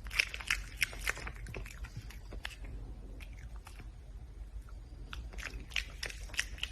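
Red panda chewing and biting its food, a run of crisp crunches that slackens after a couple of seconds and picks up again about five seconds in.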